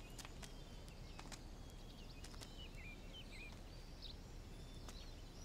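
Faint forest ambience: small birds chirping in short calls that bend up and down in pitch, over a steady low background hum, with a few scattered faint clicks.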